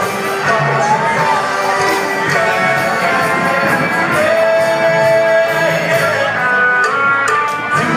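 Rock band playing live, with singing and long held notes over a steady drum beat.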